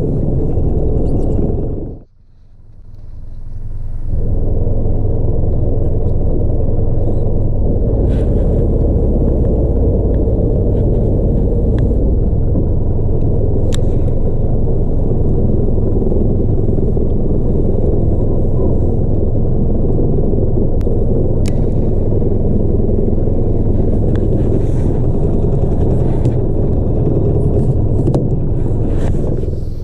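Wind buffeting the microphone on an open boat at sea: a steady low rumble that drops away for a moment about two seconds in, with a few faint clicks over it.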